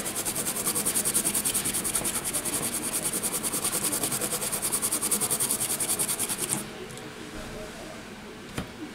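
A toothbrush scrubbing an iPhone 5S logic board in quick back-and-forth strokes, giving a rapid, even, high scratching that stops about two-thirds of the way through.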